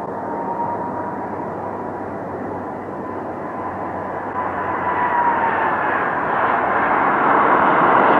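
Twin-engine jet airliner landing: steady engine noise with a faint whine that dips in pitch about five seconds in, then a rush of engine noise builds louder toward the end as the plane rolls out after touchdown.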